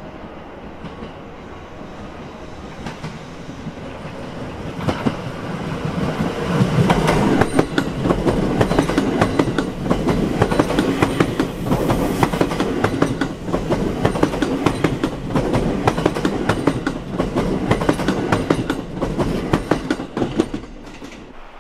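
JR West 381 series Yakumo limited express passing along the platform. Its wheels clatter rhythmically over the rail joints, building up as it draws near, staying loud as the cars go by, and cutting off near the end.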